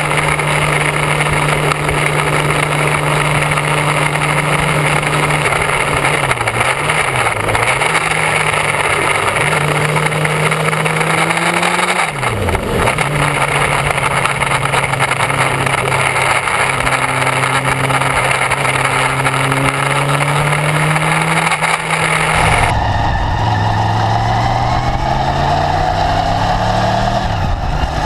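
Motorcycle engine running at road speed, heard from a camera mounted on the bike, with a steady hiss of wind and road noise. The engine tone holds steady with a few pitch changes from gear shifts and a sharp dip and rise about halfway through; about five seconds before the end the sound changes abruptly and the engine climbs in pitch in steps as it accelerates through the gears.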